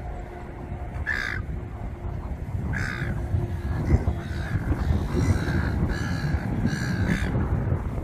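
Raven cawing: two single harsh caws, then a run of four or five caws about five seconds in, over a low rumbling background noise.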